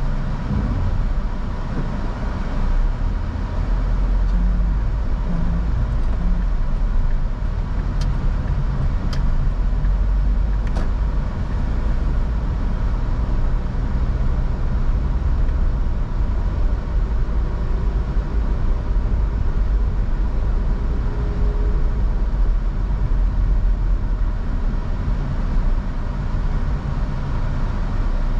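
Steady low rumble of a car on the move, engine and tyre noise with no let-up.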